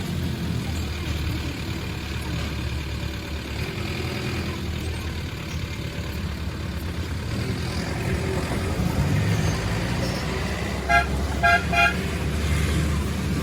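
Road vehicle rumbling steadily, with a car horn tooting three short times in quick succession near the end.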